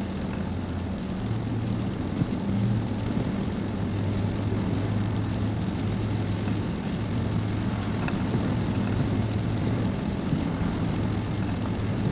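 Car driving on a wet road, heard from inside the cabin: a steady low engine hum under an even hiss of tyres and wind.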